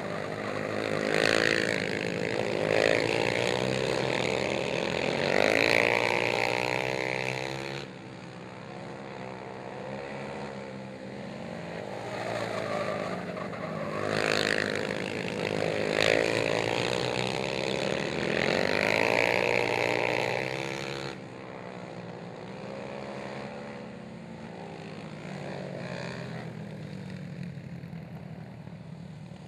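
Racing ATV engines revving hard, pitch rising and falling as the riders get on and off the throttle through the turns of a dirt oval. The engines are loud for the first eight seconds and again from about twelve to twenty-one seconds, with quieter, more distant running between and at the end.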